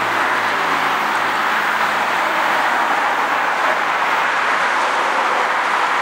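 Steady noise of heavy expressway traffic. The departing CTA 5000-series rapid transit train fades out within about the first second.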